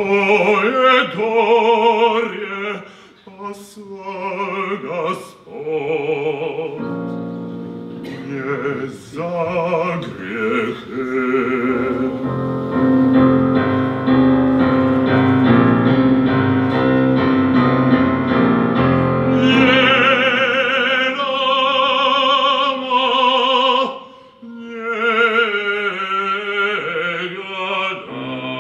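Solo male opera voice, announced as a tenor, singing an aria with piano accompaniment, his sung phrases full of vibrato, with a long held note about halfway through.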